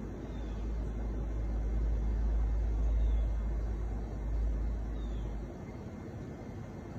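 Wind rumbling on the microphone with a steady outdoor hiss. The rumble swells and cuts off suddenly about five and a half seconds in, and a few faint, short, high falling chirps sound through it.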